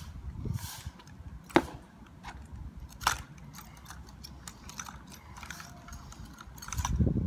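A drill rifle being spun and caught by hand, with sharp clacks of hands striking the rifle about one and a half and three seconds in and small clicking rattles between. A low rumble swells near the end.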